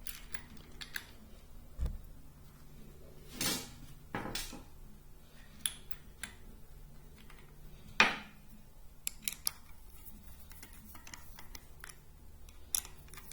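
Scattered metallic clinks and clicks of steel ratchet parts and tools being handled during reassembly, the loudest about eight seconds in.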